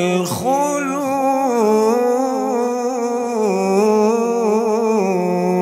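A male Quran reciter's unaccompanied voice in the melodic maqam style of tilawa, drawing out one long ornamented melismatic line with wavering, vibrato-like turns in pitch. It breaks briefly near the start.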